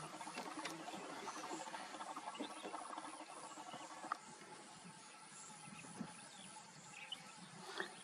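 Faint outdoor background: a steady soft hiss with faint fine chirring in the first few seconds, growing a little quieter after that, and a couple of soft clicks.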